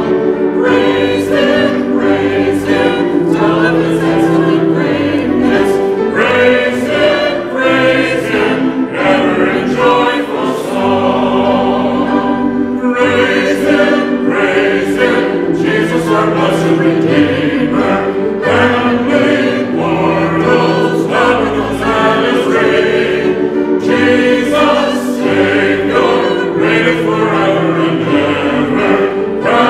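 A church choir and a song leader singing a hymn together, with the leader's voice amplified through a microphone. The singing is continuous and steady, with held notes.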